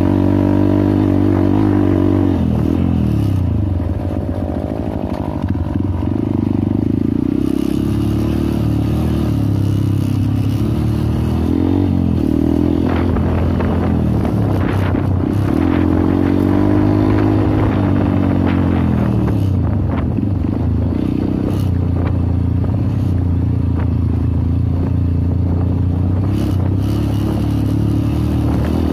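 Trail motorcycle engine running under way on a dirt track, its pitch rising and falling several times with the throttle. Rattling clatter from the bike over the rough ground in the middle part.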